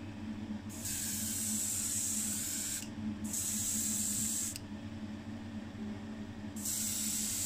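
Airbrush hissing as it sprays paint, in bursts: on about a second in, a brief break near three seconds, a longer pause around five to six and a half seconds, then on again near the end. A steady low hum runs underneath.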